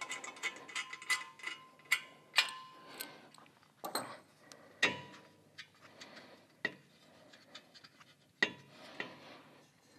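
Irregular light metallic clicks and clinks, some ringing briefly, as a Trask 2-into-1 exhaust pipe is worked into position against a Harley-Davidson Dyna's engine and frame. The louder knocks come about two and a half, five and eight and a half seconds in.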